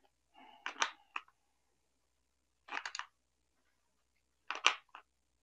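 Plastic battery cover being fitted onto the underside of a toy RC car over its AA cells and pressed shut. There are three short, faint clusters of small plastic clicks and taps, about two seconds apart.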